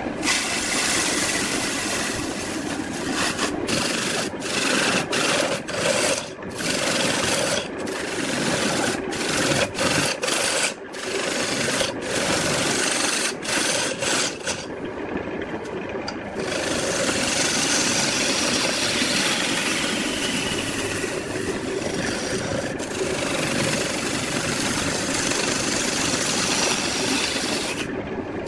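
Turning gouge cutting a spinning wood-lathe blank glued up from firewood pieces: a loud rasping, scraping cut. The cut breaks off briefly many times in the first half, then runs unbroken.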